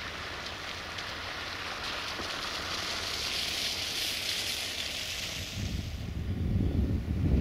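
Outdoor wind noise: a hissing rush that swells in the middle and fades, with low wind rumble on the microphone coming back strongly near the end.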